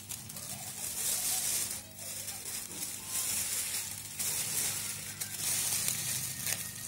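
Crumpled aluminium foil crinkling as it is handled and pulled back, in several rough, crackly spells each about a second long.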